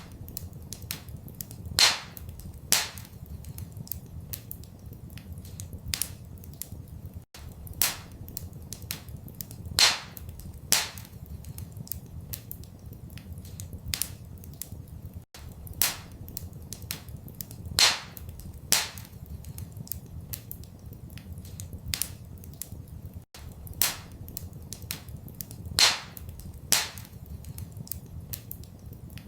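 Wood fire crackling in a fireplace: frequent small snaps and several louder pops, over a steady low rumble. The same run of pops comes back about every eight seconds.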